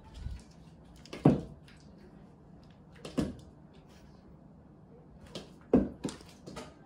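Sharp knocks on a wooden floor from a small ball being thrown and bouncing for cats to chase. There are three loud knocks about two seconds apart, with lighter taps between them.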